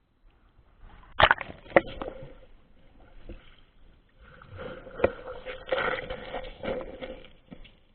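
Water splashing and sloshing in uneven bursts, with sharp knocks about a second in and again near the middle.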